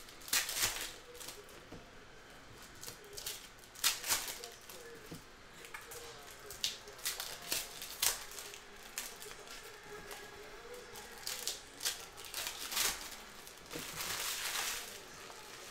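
Foil trading-card packs being torn open and crinkled by hand, with the cards inside handled and slid out: a string of short, irregular rustles and crackles, with a longer stretch of crinkling near the end.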